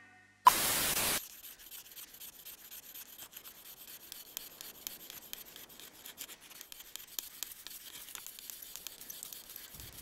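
A short loud whoosh about half a second in, then faint dry scraping with many fine ticks: a wooden stick rubbed back and forth along a groove in a wooden board, a fire plough making fire by friction.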